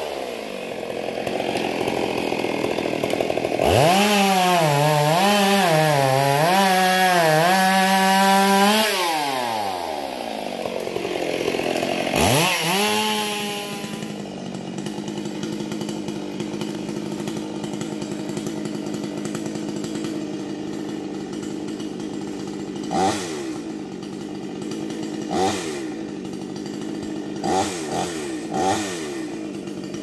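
Chainsaw revving high for about five seconds with its pitch wavering, then falling back to idle. It idles steadily, with a few short throttle blips near the end.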